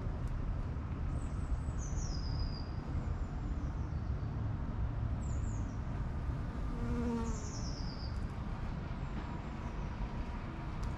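Outdoor ambience: a steady low rumble with small birds chirping in short, high, falling runs three or four times, the clearest about seven seconds in.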